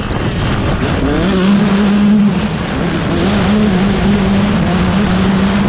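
Motocross dirt bike engines running hard in a race. The main engine note rises and dips several times as the throttle is worked and gears change.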